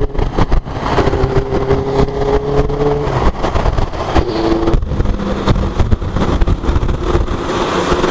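Bajaj Pulsar 220's single-cylinder engine running under way, its note rising slowly over the first three seconds then dropping away, with a brief return about four and a half seconds in. Constant wind and road noise with irregular sharp crackles lie over it.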